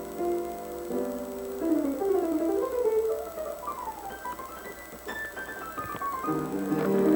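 Piano being played: held chords, then quick runs of single notes going up and down, with fuller chords coming back in near the end.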